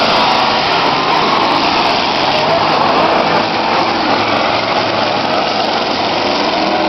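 Engines of several demolition-derby cars running hard around the track, a loud, steady, dense engine noise with no break.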